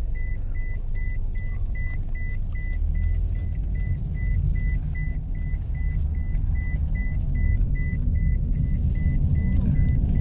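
Road and engine rumble inside a moving Toyota taxi's cabin, with a high electronic warning beep repeating steadily at nearly three beeps a second.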